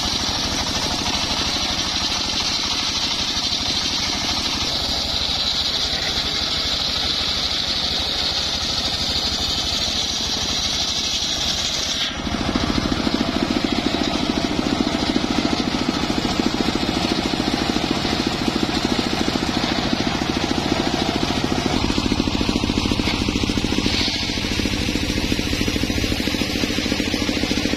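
Homemade engine-driven circular saw bench ripping an acacia log into planks: the blade cutting through the wood with a steady high whine over the running engine. About twelve seconds in, the sound changes abruptly to a louder, lower steady engine-and-blade hum without the high cutting whine.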